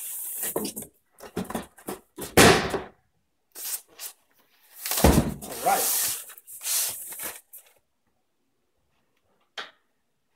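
Cardboard box being slid off a tape-bound styrofoam shipping carton and handled: a series of scraping and rustling noises with two heavy thumps, about two and a half and five seconds in.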